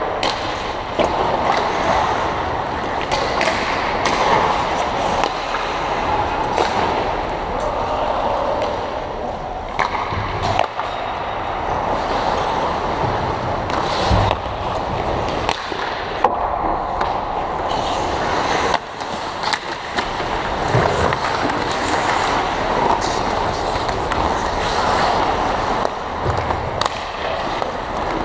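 Ice hockey play: a steady scraping of skates on the ice, broken by frequent sharp clacks of sticks and puck.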